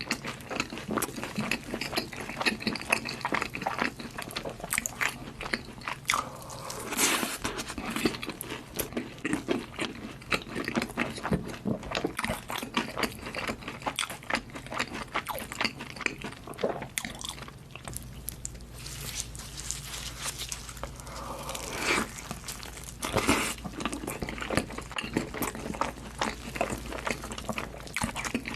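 Close-up eating of pizza and fried chicken: continuous crunchy bites and chewing, many irregular crunches one after another with brief lulls.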